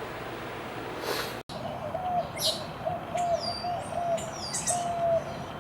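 Steady hiss that cuts off abruptly about a second and a half in, followed by birds singing: about seven short, even, low whistled notes mixed with quick high chirps.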